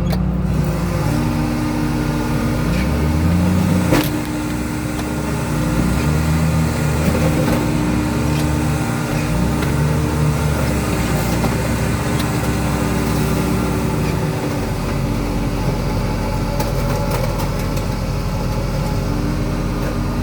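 Diesel engine of a car crusher running under load, its pitch rising and falling again and again as the hydraulics work. There is a sharp bang about four seconds in.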